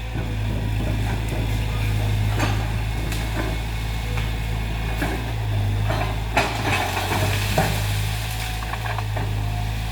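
CAT excavator's diesel engine running steadily under load, with scattered sharp cracks and snaps as it breaks through jungle growth and rattan, the loudest a little after six seconds in.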